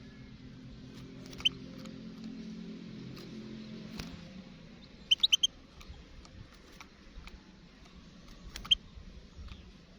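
European goldfinch giving short, high chirps: one about a second and a half in, a quick run of four in the middle, and another near the end.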